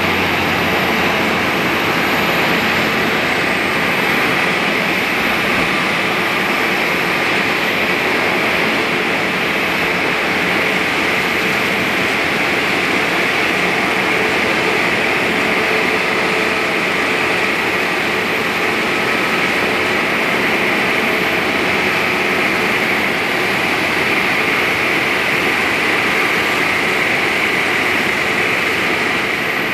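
Airbus A321neo's jet engines running at low taxi power: a steady, loud rushing whine with a strong hiss.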